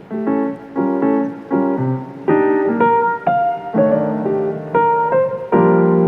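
Background piano music: chords and single notes struck in a steady, unhurried rhythm, about two a second.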